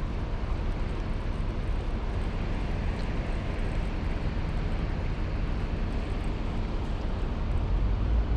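Steady rushing outdoor noise with a deep rumble underneath, even throughout.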